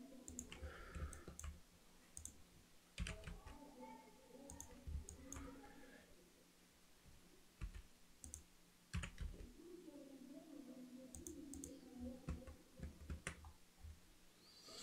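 Faint, irregular clicks of a computer mouse and keyboard, some coming in quick pairs.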